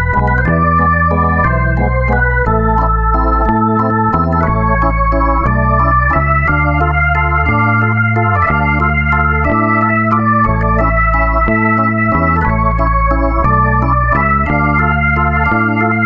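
Background music: slow, sustained organ-like chords over a deep bass, the chord changing about once a second.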